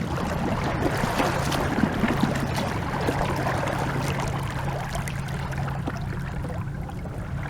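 Water rushing and splashing over a steady low hum.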